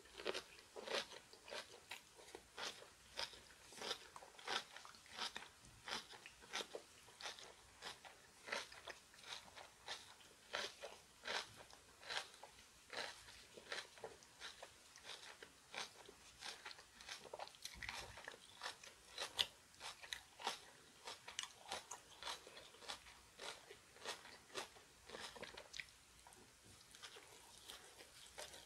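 A person chewing crunchy kimchi close to the microphone: crisp crunches about two a second.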